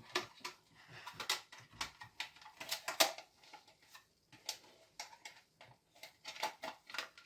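Irregular light clicks and knocks of a washing machine's plastic detergent dispenser tray being handled and taken apart for cleaning.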